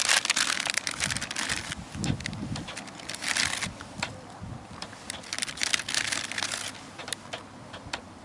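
Plastic instant-ramen packet crinkling and dried noodle block crunching as the noodles are broken up and handled, in irregular bunches of rustling, busiest at the start. A dull knock about two seconds in.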